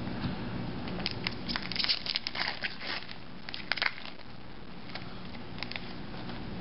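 Foil wrapper of an Upper Deck hockey card pack being torn open and crinkled. A burst of crackling runs from about one second in to about four seconds in, followed by a few light clicks.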